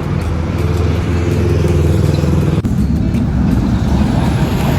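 Road traffic: motor vehicle engines running with a steady low hum, changing abruptly to a rougher rumble about two and a half seconds in.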